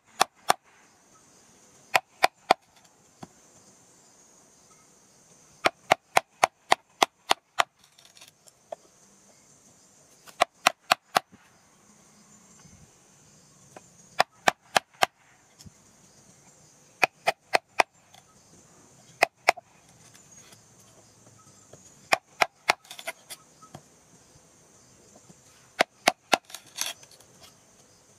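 Repeated sharp chopping strikes on wood, in bursts of several quick blows, about three or four a second, with short pauses between the bursts.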